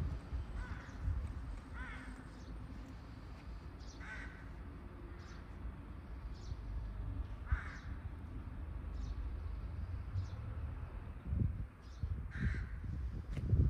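Crows cawing: about five short calls spaced several seconds apart, over a low steady background rumble.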